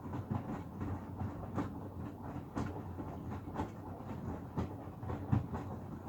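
Hoover Axi front-loading washing machine drum turning with wet laundry, water sloshing and the load dropping with a thud about once a second.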